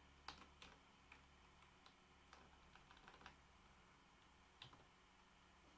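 Faint computer keyboard keystrokes, about ten scattered single key presses against near silence, with a small cluster in the middle.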